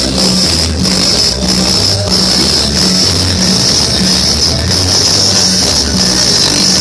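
Loud dance music played over a sonidero sound system, with a repeating bass pattern.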